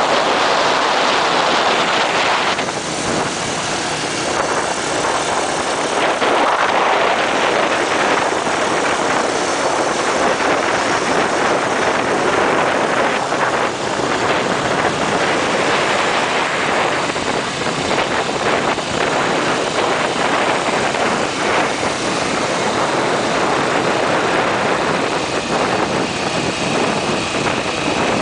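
Steady wind rush on the microphone of a vehicle travelling at highway speed, with engine and road noise from the motorcycles riding alongside mixed in.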